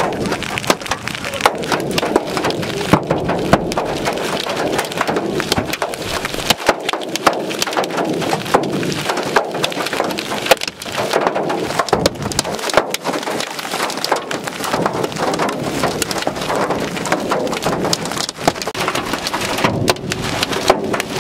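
Large hail coming down hard, a dense, unbroken clatter of hard hailstones striking over a steady rush of rain.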